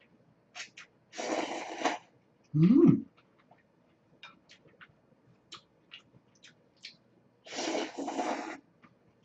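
Noodles in cold soy-milk broth slurped twice, each a rush of about a second, one near the start and one near the end. Between them comes a short hum from the eater that rises in pitch, the loudest sound, with light clicks of chopsticks and chewing throughout.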